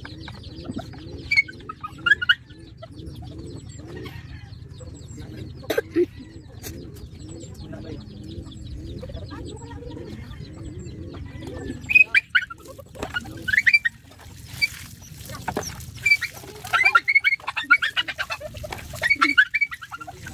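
Chickens clucking in a steady low run of repeated calls, with short higher bird chirps over it that come thicker in the second half, and a couple of sharp knocks about six seconds in.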